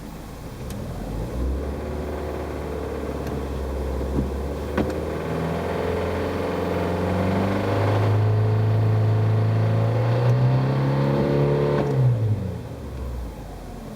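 Subaru Pleo RM's EN07Z four-cylinder engine revved in Park: it climbs from idle, holds high revs for a few seconds, then drops back to idle near the end. Around 2500 rpm it makes a rattling 'garagara' noise, an unexplained abnormal noise whose cause the owner is asking about.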